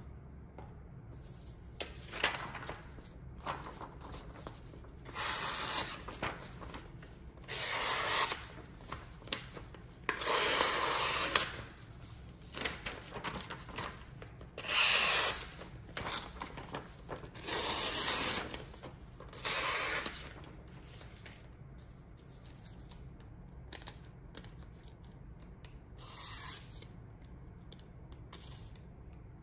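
Unboxing packaging being torn and rubbed: a series of rough tearing and scraping noises, each a second or two long, with a shorter one near the end.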